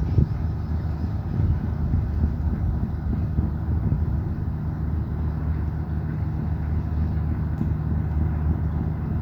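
Tourist riverboat's engine running steadily with a low hum as the boat comes in close.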